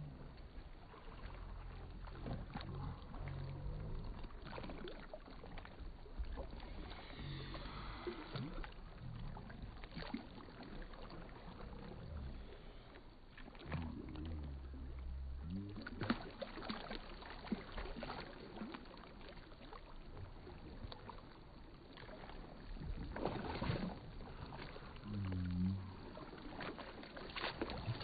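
Kayak paddle dipping and splashing faintly in calm water in irregular strokes, over a low steady rumble of background noise.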